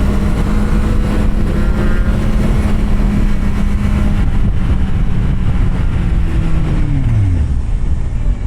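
Kawasaki Z750R's inline-four engine running under steady throttle at cruising revs. About halfway through the revs drop slightly, and near the end they fall away quickly as the throttle is closed.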